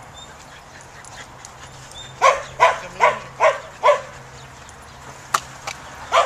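A dog barking five times in a quick run, about two and a half barks a second, then barking again at the very end. A single sharp click falls between the two runs.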